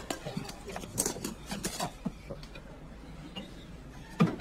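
Small clicks and knocks from a briefcase being handled on a table, with a louder knock near the end.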